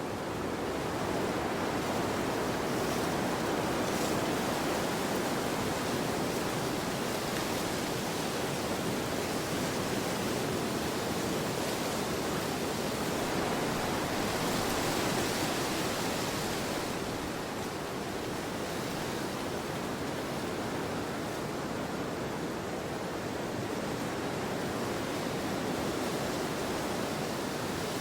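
Wind blowing steadily in a snowstorm: an even rushing noise that swells a little about halfway through, then eases back.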